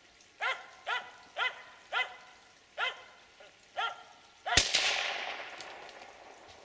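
Finnish spitz tree-barking: six sharp, pitched barks at a bird up in the trees. About four and a half seconds in comes a single loud gunshot that echoes away through the forest for a couple of seconds.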